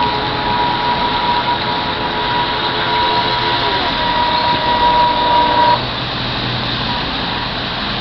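Motor of a radio-controlled model fast ferry giving a steady high whine as it runs at speed, over a constant background hiss. The whine cuts off a little under six seconds in as the boat throttles back.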